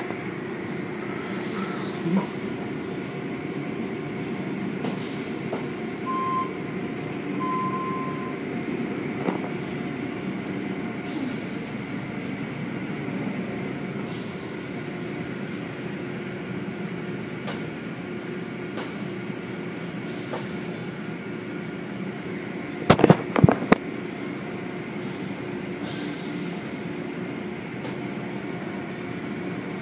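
Automatic tunnel car wash running: a steady machinery hum with water spraying and cloth brushes working over the vehicles. A quick run of loud knocks comes about three-quarters of the way through.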